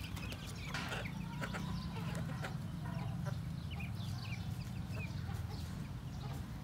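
A flock of chickens with young chicks: hens clucking and chicks giving many short high peeps, over a steady low rumble.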